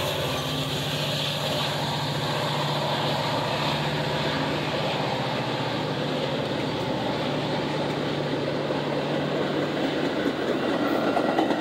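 Metra bilevel commuter rail cars rolling past close by: a steady rumble of wheels on the rails with a low hum, growing a little louder near the end as the cab car goes by.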